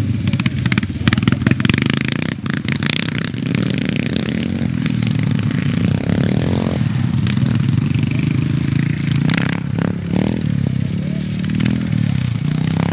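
Vintage CCM scrambles motorcycle running as it is ridden around the track, with sharp crackling from the exhaust in the first few seconds, then steadier running with short rises in revs a few times near the end.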